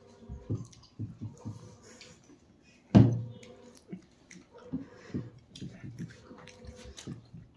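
Eating sounds of people chewing momos at a table, with some brief mumbled vocal sounds. About three seconds in comes a single loud knock, a drinking glass being set down on the tabletop.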